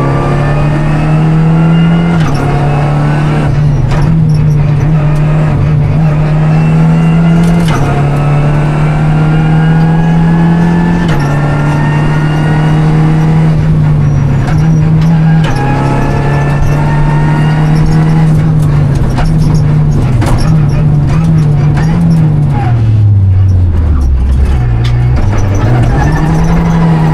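Renault Clio Rally5's turbocharged 1.3-litre four-cylinder at full rally pace, heard from inside the cabin: revs rising again and again through the gears, with knocks and clatter from the road surface. A little after twenty seconds in the engine note drops low as the car slows hard, then climbs again.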